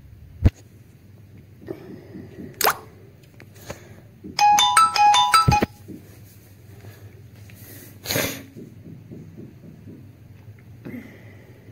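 A short electronic alert tune, a quick run of stepped beeping notes lasting about a second, starting about four and a half seconds in. A sharp click comes before it, a couple of seconds apart from another click, and a brief hiss follows a few seconds after.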